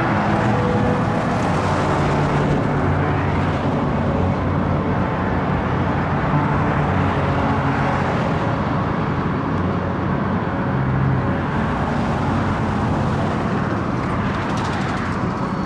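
Steady noise of freeway traffic, a continuous wash of passing vehicles with a low engine hum beneath it.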